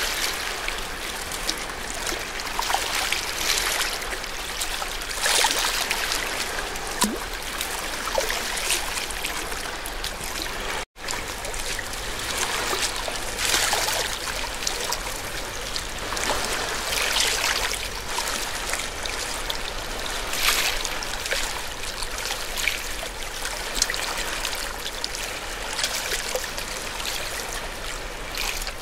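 Ocean waves washing in and splashing at the shore, a steady rush of water broken by frequent small splashes. The sound drops out for an instant about eleven seconds in.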